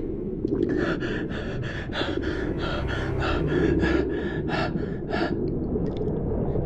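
A scuba diver breathing fast and hard through a regulator, about three quick breaths a second, over a steady low underwater rumble: panicked breathing. The breaths stop about five seconds in.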